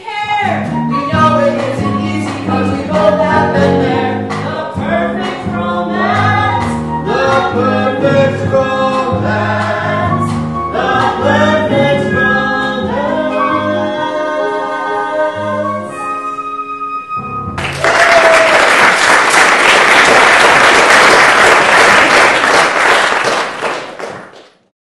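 A man and a woman singing the close of a musical-theatre duet over instrumental accompaniment, ending on a held note about 17 seconds in. The audience then breaks into loud applause, which fades out just before the end.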